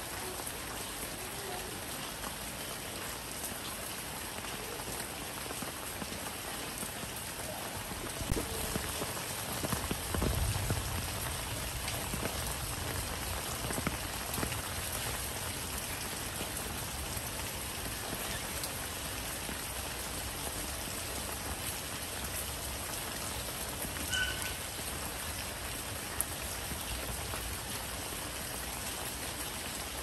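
Steady rain falling on leafy plants, with a brief low rumble about ten seconds in.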